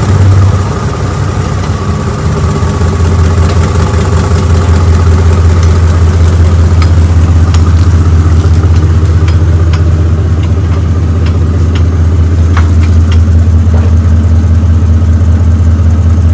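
A machine running steadily with a loud, unchanging low hum, with a few light clicks over it.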